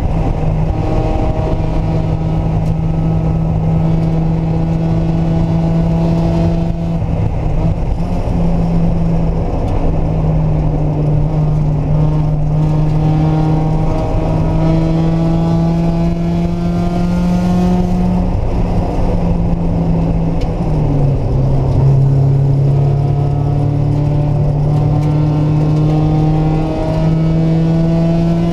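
Mazda Miata's four-cylinder engine at speed on a race track, its note climbing under acceleration and dropping back at each gear change, several times over, with steady low road and wind rumble.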